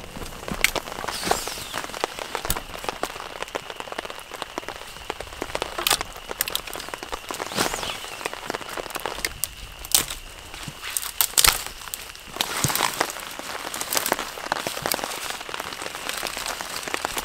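Rain falling on a tarp shelter: a steady hiss with many irregular, sharp drop hits.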